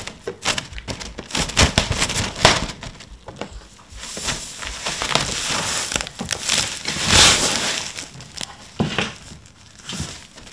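Clear plastic film crinkling and crackling as a kitten pushes and claws through it: an irregular run of sharp crackles and rustles, loudest about seven seconds in.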